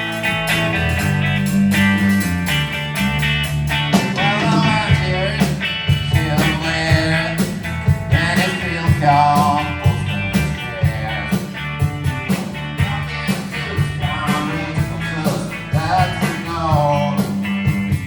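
Live blues band playing an instrumental passage between vocal lines: a lead line with bending notes over bass, guitar and a steady drum beat.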